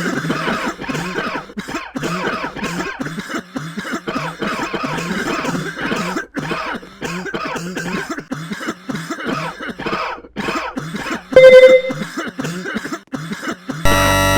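A person coughing over and over in quick, hacking bursts. A very loud short beep cuts in about three quarters of the way through, and loud synthesized music blares in near the end.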